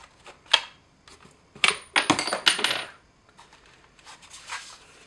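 Sharp metallic clicks and a brief clattering jingle with a thin ringing, from the metal parts of a homemade rifle being handled.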